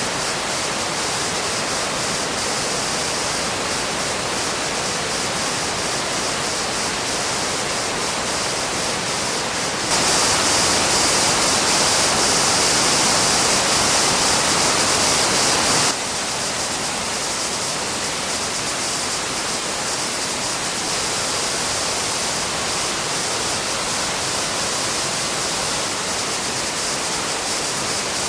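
Waterfall rushing in a steady, even roar of water. About ten seconds in it suddenly becomes louder and brighter for some six seconds, then drops back just as abruptly.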